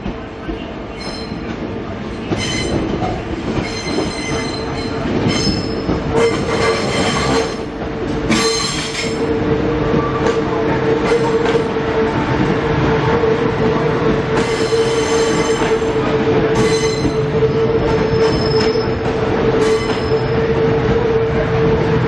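Queensland Rail ICE electric train set pulling into the platform, its wheels squealing in many short high-pitched bursts over a steady hum. It grows louder as the cars draw alongside.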